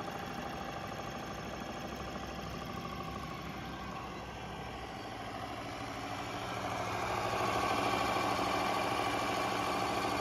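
Electric boat motor, fitted with a copper water-cooling coil, running steadily with a mechanical hum; the hum grows louder about six to seven seconds in.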